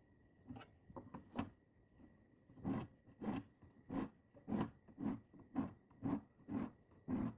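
Diamond file stroking across the teeth of a Gyokucho ryoba Japanese saw to sharpen them. A few light strokes come first, then from about two and a half seconds in there are short, regular strokes at about two a second.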